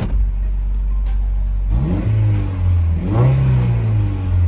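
1985 Toyota MR2's mid-mounted four-cylinder engine idling, then revved twice in short blips about two and three seconds in, the pitch rising and settling back each time, heard from inside the cabin.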